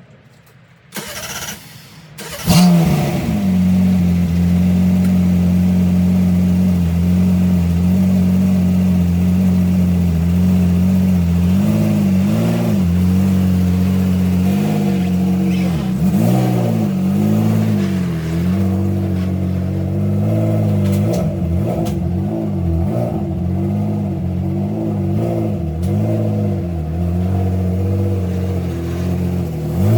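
BMW Z1's straight-six engine cranked and starting about two seconds in, then idling steadily at a firm, even pitch that wavers a little later on.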